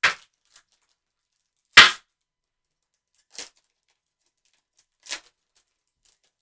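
Foil trading-card pack wrapper being torn open and crumpled by gloved hands: four short, sharp crackling snaps about a second and a half apart, the second the loudest.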